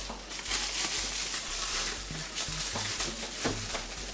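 Irregular rustling with small handling knocks, as the packing around the printer's motors is moved.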